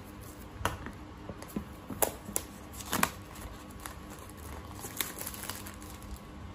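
Clear plastic shrink wrap being torn and peeled off a cardboard box, crinkling in a string of sharp crackles, the loudest about two and three seconds in.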